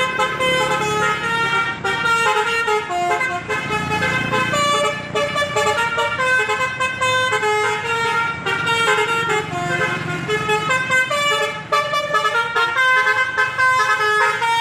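Indonesian bus telolet horns playing rapid, stepped melodic tunes. The multi-trumpet horns sound several notes at once and keep changing pitch without a break, over a low rumble.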